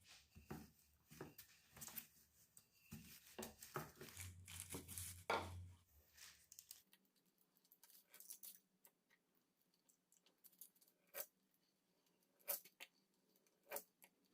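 Faint rustling and light clicks of food preparation being handled. The rustling is busiest in the first half, and a few isolated sharp ticks follow in the second half.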